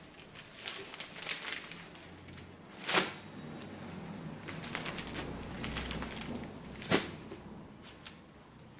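Handling noise as a silk saree is spread out on a tabletop: soft rustling and light clicks, with two sharp knocks about four seconds apart.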